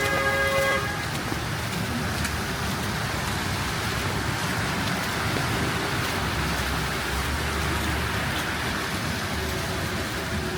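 Steady wet hiss of a heavy snowstorm on a city street, with traffic and tyres on slush. A short pitched tone sounds right at the start, and a low rumble passes a little after the middle.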